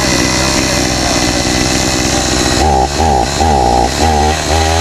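Chainsaw running, then revved in short rising-and-falling bursts from about two and a half seconds in.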